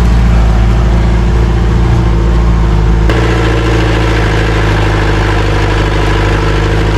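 Jeep engine pulling steadily in four-wheel drive and low off-road gear up a steep track; its note changes about three seconds in.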